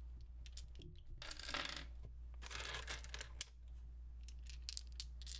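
Plastic polyhedral dice clicking and clacking against each other in a hand and onto a wooden desktop as they are picked up and sorted into a set. There are two longer stretches of rattling, about a second in and again around two and a half seconds in, over a low steady hum.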